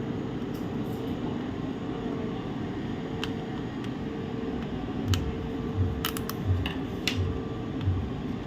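Sharp plastic clicks and snaps as a plastic pry tool works a laptop's casing apart, a few at a time, over a steady hum with a faint tone. From about halfway through, soft low thumps repeat roughly every 0.7 seconds.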